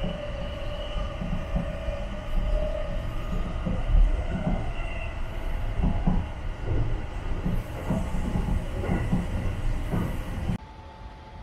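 Sunrise Express sleeper train (285 series electric train) running at speed, heard from inside the car: a steady rumble of wheels on rail with a high steady whine in the first few seconds, then a run of irregular knocks from the running gear. Near the end it drops abruptly to a quieter hum.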